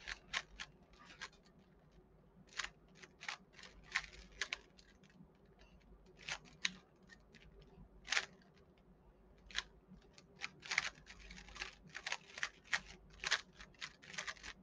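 Rubik's cube being turned fast in a speedsolve: bunches of quick, sharp plastic clicks and scrapes from the layers turning, broken by short pauses.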